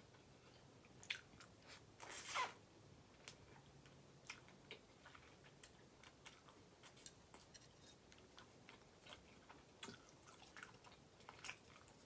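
Close-miked eating sounds of a person chewing ramen noodles and vegetables: soft, scattered wet clicks and small crunches. One louder burst of mouth noise comes about two seconds in.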